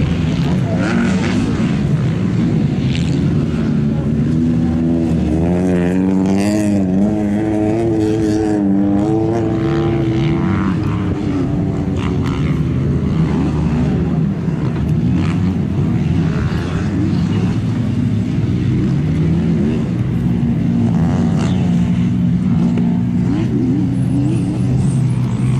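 Motocross bike engines revving, their pitch climbing and falling with the throttle. Several revs overlap about a quarter of the way through.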